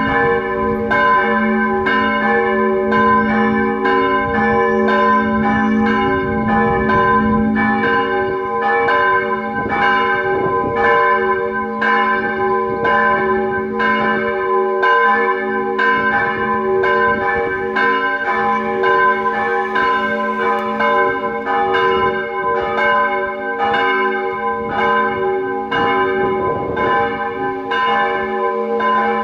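Steel church bells swinging and ringing together, about three strokes every two seconds, each stroke ringing on into the next so the tones hum steadily between strikes.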